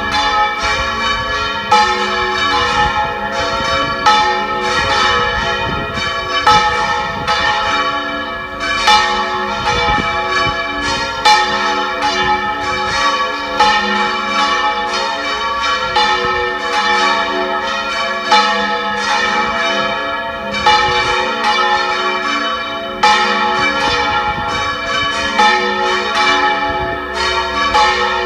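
Three church bells (182, 319 and 512 kg) swung full circle in Valencian volteig style. Their strokes overlap in a continuous, irregular peal, each strike renewing the ringing. Wind rumbles on the microphone underneath.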